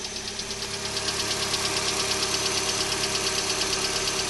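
Hyundai Elantra engine idling with a rapid, even ticking over the hum, growing louder about a second in. The ticking comes on at cold startup in the morning and can last 5 to 10 minutes.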